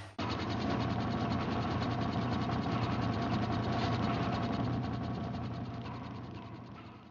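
Rapid, evenly spaced mechanical clicking like a ratchet, starting abruptly just after the start and fading out near the end.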